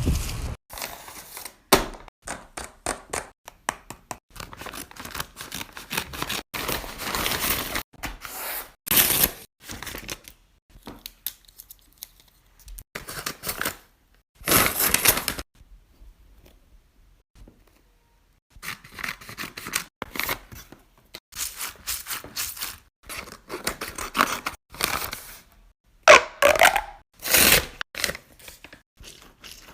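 Close-up handling noise: irregular tearing, scraping and crinkling sounds in uneven bursts, with a near-silent pause about halfway through.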